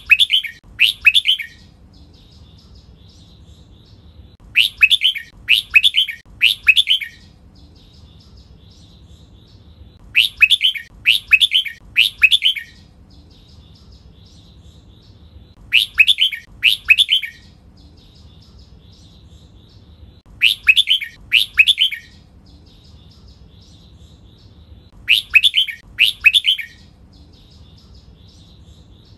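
Red-whiskered bulbul singing: a loud, bright phrase of two or three quick falling whistled notes, repeated about every five seconds, with faint twittering between the phrases.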